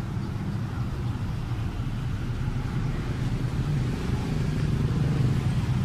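Steady low rumble of a motor vehicle engine running, with street traffic around it.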